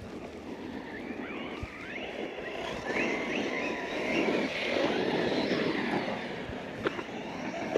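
Electric motor of an MJX Hyper Go 10208 V2 RC truck whining, rising and falling in pitch again and again as it is throttled on and off, over a rough scrabbling noise of tyres on dirt. Two sharp knocks near the end.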